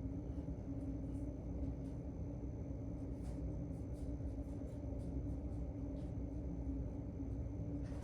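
Steady low room hum with a constant tone, and a few faint ticks.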